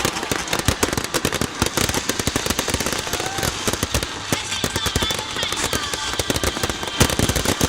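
Fireworks display going off in rapid succession: a dense, continuous run of sharp crackling bangs.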